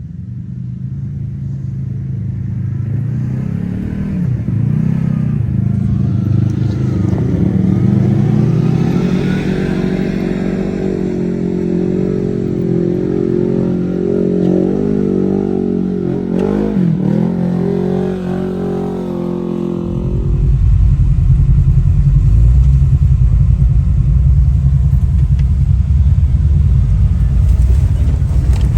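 Side-by-side UTV engine working along an off-road trail, its pitch rising and dipping as the throttle is opened and eased off. About two-thirds of the way through it changes suddenly to a louder, steady deep rumble.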